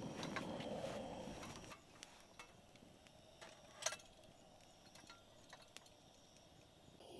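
Faint, sporadic pops and ticks of a wood campfire crackling, with one sharper pop about four seconds in.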